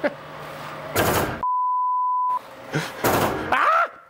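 Censor bleep: a steady 1 kHz beep lasting about a second, with all other sound cut out beneath it. Loud, noisy outbursts come just before and after it, the second ending in a short voice sound that rises and falls.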